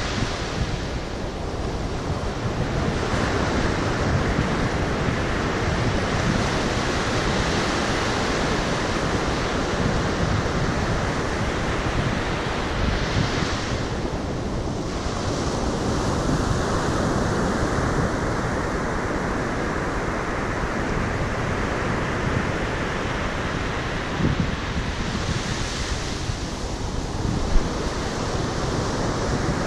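Ocean surf breaking on a sandy beach, a steady wash with the waves swelling up about 13 and 25 seconds in, and wind buffeting the microphone. A single short tap near the end.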